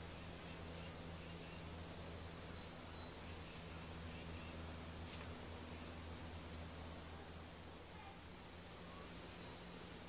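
Faint outdoor ambience: a steady, high-pitched insect trill with a low hum beneath it. A few faint high chirps come in the first few seconds, and a single sharp click about five seconds in.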